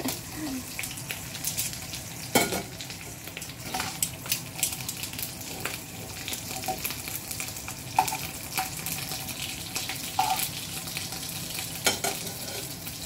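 Dried salted fish (tuyo) frying in hot oil in a pan: a steady sizzle and crackle, with a few sharp clicks as metal tongs lift the fish pieces out.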